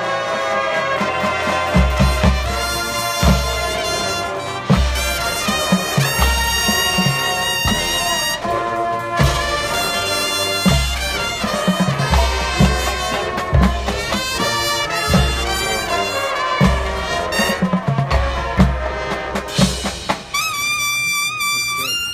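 Drum and bugle corps playing live: the brass horn line carries the music over the front ensemble, with low drum strokes coming in about two seconds in and repeating through most of the passage. Near the end the drums stop and the horns hold one long chord.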